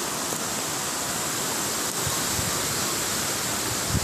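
Storm-swollen floodwater rushing steadily down a concrete drainage channel.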